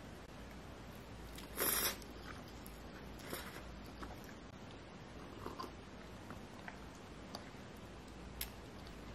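A short rustle about one and a half seconds in, then a few light clicks and taps over quiet room tone.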